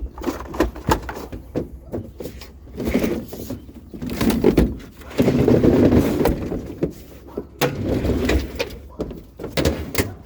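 Repeated knocks and clatter of a metal treadmill being handled and pushed into a vehicle, with a longer scraping drag about five seconds in.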